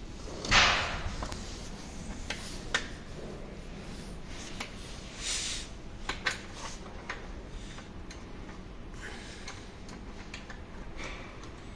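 Hands handling and fitting a scooter's plastic body panels. A loud scrape or rustle comes about half a second in, followed by scattered sharp clicks and light knocks of plastic parts.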